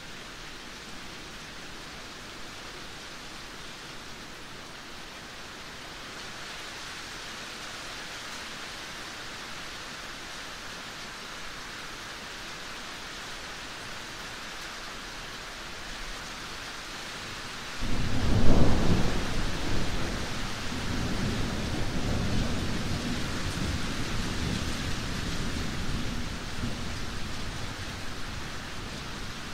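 Steady rain, with a sudden clap of thunder about two-thirds of the way through that is by far the loudest sound, then rumbles on for several seconds and slowly dies away.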